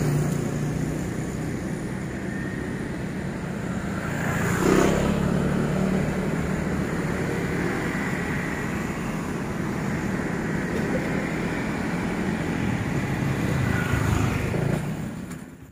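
Road traffic: a steady low engine hum with cars and motorcycles going by. Louder vehicles pass about five seconds in and again near the end, and the sound cuts off suddenly.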